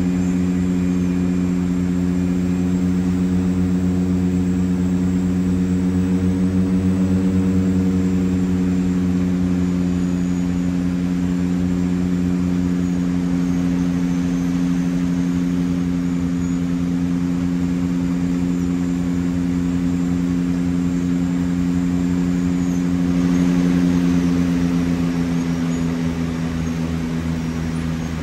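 The Twin Otter's two Pratt & Whitney PT6A turboprop engines and propellers drone steadily, heard from inside the cockpit, as the aircraft makes its final approach and lands. The drone swells briefly louder and rougher near the end.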